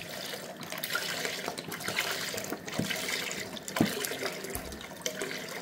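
Full-fat milk poured in a steady stream into a pot of boiled rice, splashing into the foaming liquid. A single sharp knock about four seconds in.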